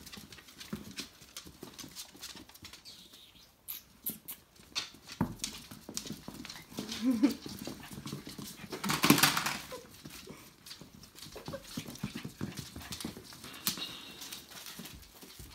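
Five-week-old Tamaskan puppies scampering and play-fighting on a wooden floor: many claw clicks and scuffles, with a few short puppy vocal sounds, and a louder scuffle about nine seconds in.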